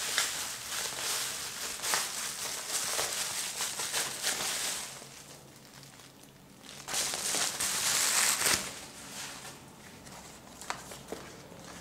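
Plastic bubble wrap crinkling and rustling as it is pulled off a camera lens, in two spells: a long one at the start and a second, louder one about seven seconds in. A few light clicks near the end.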